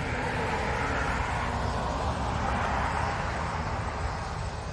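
Road traffic: a vehicle driving past, its road noise swelling to a peak a couple of seconds in and then fading, over a low steady rumble.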